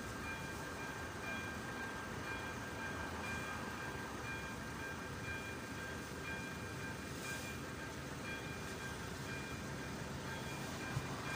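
ZV-02 electronic level-crossing warning bell ringing with repeated chime-like tones, the signal that a train is approaching the crossing, over a steady low rumble.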